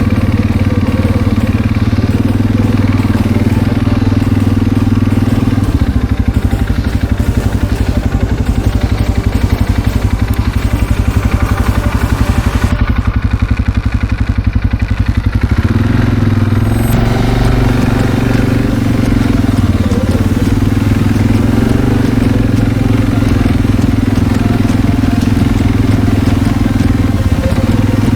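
A loud engine running steadily. From about six seconds in it takes on a rapid pulsing beat until about halfway through, then settles into a steadier, slightly higher tone.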